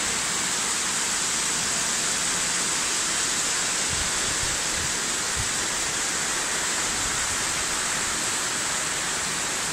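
Heavy rain falling steadily onto floodwater, an even hiss that stays at one level.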